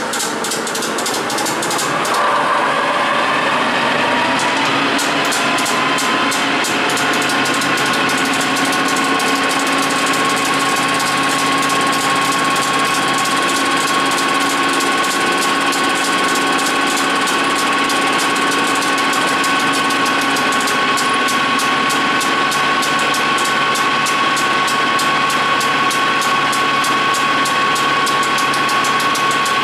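Capstan lathe spinning up over the first two seconds, then running steadily with a high whine. A fine, rapid ticking joins from about six seconds in.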